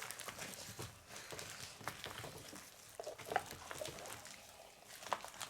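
Slime being kneaded and pressed by hand, with faint, irregular sticky clicks and squelches.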